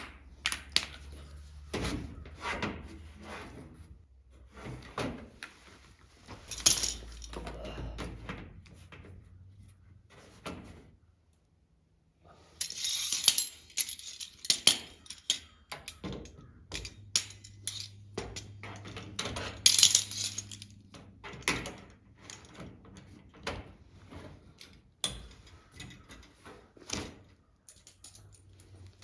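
Shop work noises from fitting plastic body panels to a race car: scattered clicks, knocks and metallic clinks of tools and fasteners being handled, with a few short scraping rasps. The sounds break off briefly about twelve seconds in.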